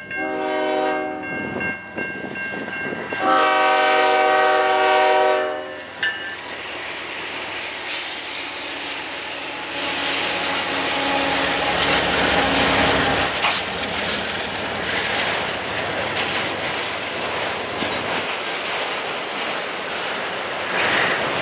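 Diesel freight locomotive's air horn sounding two blasts for the grade crossing, the second longer and louder. Then the two locomotives, a GE ES44DC and an EMD SD75i, pass close by, and a train of autorack cars follows, rolling by with steel wheels clicking over the rail joints.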